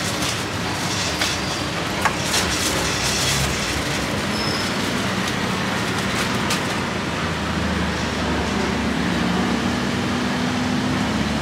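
Steady street traffic noise, with a vehicle engine's low hum coming up about halfway through and growing toward the end. A few light clicks sound in the first few seconds.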